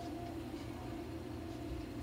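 Steady machine hum with a low rumble from a nebulizer running, filling a cat's oxygen cage with medicated mist for inhalation therapy.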